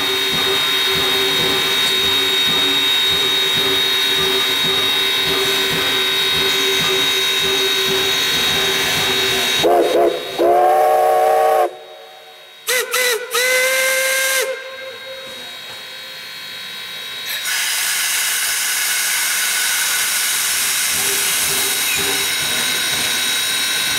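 Narrow-gauge 2-8-2 steam locomotives standing and hissing steam steadily. About ten seconds in, a steam whistle sounds two blasts, each sliding up in pitch as it opens; the second trails off to a lower tone before the hiss comes back.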